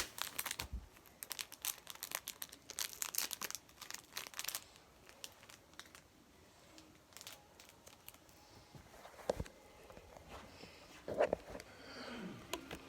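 Plastic packaging crinkling as things are rummaged through and handled, dense for the first four or five seconds, then only a few scattered rustles and knocks.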